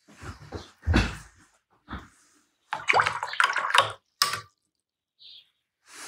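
A paintbrush being swished in a water pot and worked against the palette, in short splashy bursts with a few knocks of the brush against the pot or palette, the firmest about a second in.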